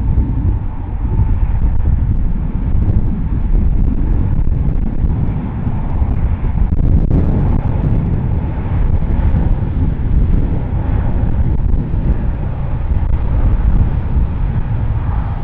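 Airbus A350's Rolls-Royce Trent XWB jet engines running as the airliner rolls along the runway: a steady low rumble with a faint whine above it.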